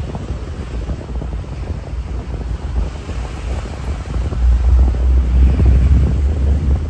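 Wind buffeting the microphone over rushing sea water from a moving boat, with a deep rumble that gets louder about four and a half seconds in.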